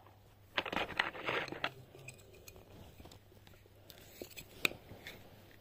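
Small plastic Schleich toy flower boxes and water-jump pieces handled and set down on a table: a faint rustling scrape for about a second, starting about half a second in, then a couple of light plastic clicks about four seconds in.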